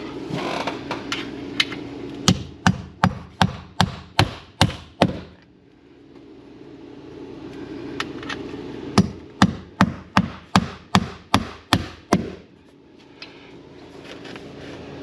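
Hammer blows in two quick runs of about eight and nine strikes, roughly three a second, with a pause of a few seconds between them, over a steady low hum.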